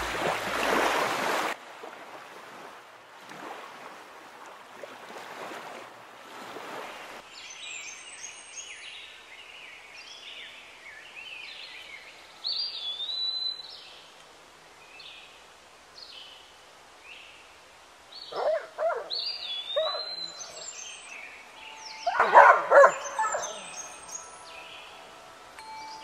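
A dog splashing through shallow water, then songbirds chirping and singing in short repeated phrases. Two louder brief bursts of noise break in later, the louder of them near the end.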